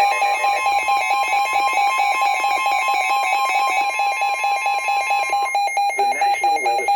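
Weather radio alert alarm sounding for a severe thunderstorm warning: a loud electronic tone with a rapid pulsing beat. Part of the tone drops out about five and a half seconds in, and the broadcast voice starts to come in under it near the end.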